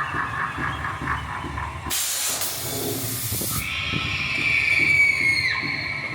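Haunted-house dark ride's guillotine scare: a sharp blast of hissing air lasting under two seconds, followed by a long falling shriek-like tone, over the rumble and regular clacks of the ride car on its track.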